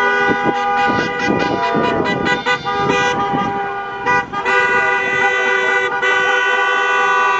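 Several car horns honking in celebration, long overlapping blasts held almost without a break. The horns dip briefly about halfway through, then come back louder. People shout over them in the first few seconds.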